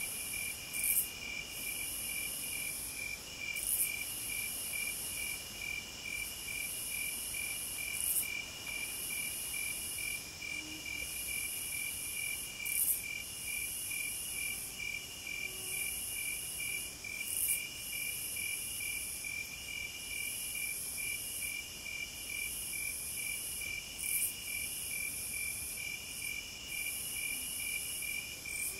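Insects chirping steadily in a cricket-like chorus: an even, rapid pulsing chirp a few times a second, with a higher trill that breaks off and resumes every couple of seconds.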